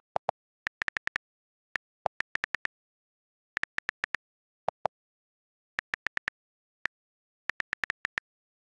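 iPhone keyboard key clicks as Chinese characters are typed stroke by stroke: short quick ticks in irregular bursts of two to five, most high-pitched and a few lower-pitched.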